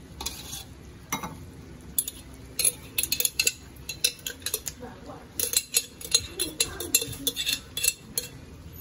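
Metal spoon scraping and knocking against a jar and a metal wok in a quick irregular series of clicks, as thick chilled coconut cream is scooped out and dropped into the pan.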